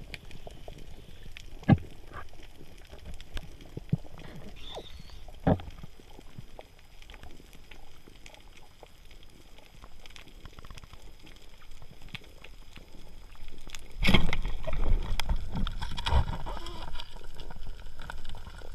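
Muffled underwater sound picked up through a camera's waterproof housing: a low water hiss with a few sharp knocks and clicks in the first six seconds. About fourteen seconds in it turns louder, with water churning, low thumps and clicking as the diver moves the spear toward the reef.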